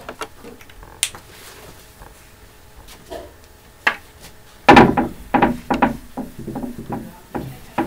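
Whiteboard eraser being wiped across a whiteboard: a couple of lone clicks, then from about halfway a quick run of knocking, rubbing strokes against the board.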